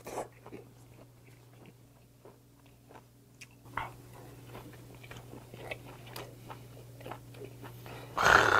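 Close-miked chewing of raw pen shell adductor slices: soft wet mouth clicks and smacks scattered through. Near the end a sudden loud burst of noise cuts in.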